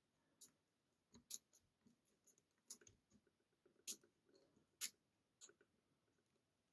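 A handful of faint, irregular metallic clicks from a lock pick lifting and setting the custom pins of a pin-tumbler challenge lock under tension, the loudest two about four and five seconds in.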